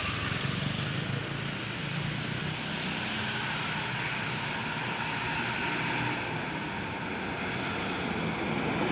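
Bus diesel engine running steadily, with road noise.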